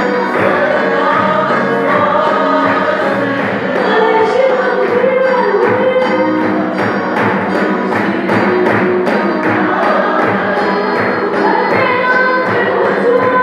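A congregation singing a hymn together to a steady drum beat.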